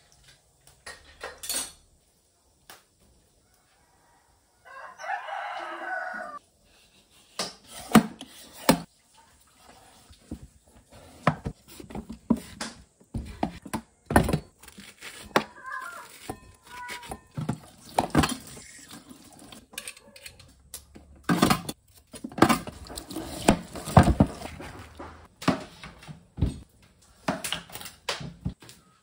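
A rooster crows once about five seconds in. After that comes a long run of irregular knocks and clatter as a metal bowl and halved papayas are handled at a stainless steel sink.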